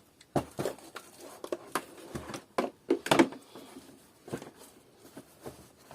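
Irregular clicks and knocks of plastic parts as a Kärcher DS5500 vacuum cleaner's housing is handled during disassembly.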